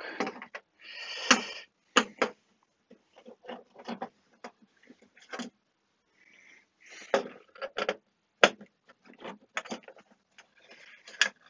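A hand screwdriver backing out the screws of a Fluke 8300A multimeter's top cover: scattered sharp clicks, taps and short scrapes, with a brief louder scrape about a second in.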